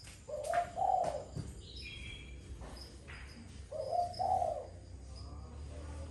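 A dove cooing twice, each coo a short two-part phrase, about three seconds apart. Faint higher bird chirps come between the coos.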